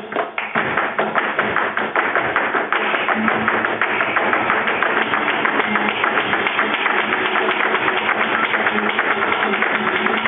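Flamenco footwork (zapateado): shoes striking a hard floor in a fast, dense, even run of taps, many per second, with flamenco music faintly underneath.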